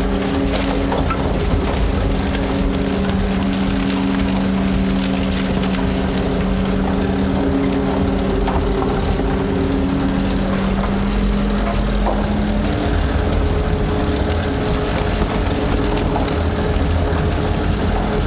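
Rotopress rotary-drum garbage truck's engine and hydraulic drive running steadily, a continuous low drone with a hum that changes pitch about ten to twelve seconds in.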